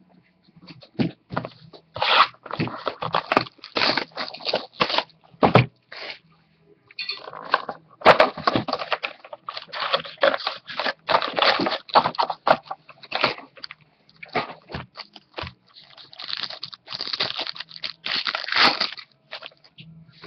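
A 2013 Bowman Sterling baseball card box being torn open and its wrapped card packs pulled out and unwrapped. Irregular crinkling, tearing and scraping of cardboard and pack wrappers comes in short bursts with brief pauses.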